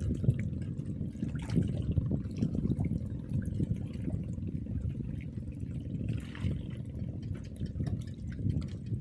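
Water sloshing and lapping, an uneven, choppy low rumble that goes on throughout.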